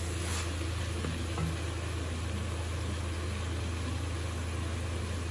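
Steady low hum with an even hiss above it, the running background of a kitchen gas stove. There is a small knock about one and a half seconds in.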